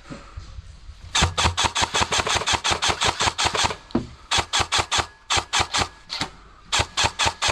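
Airsoft electric rifle (AEG) firing on full auto: three long bursts of rapid shots, about nine or ten a second, with short pauses between.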